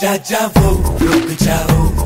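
Upbeat dance song with a strong, regular drum beat and deep bass, cutting in suddenly at the start.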